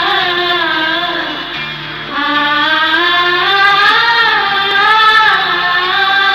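Sad Bangla ringtone music: a slow, gliding melody with a singing voice, easing off briefly about two seconds in.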